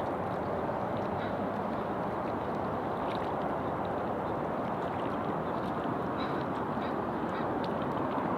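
Ducks quacking in short, scattered calls over a steady rushing background noise.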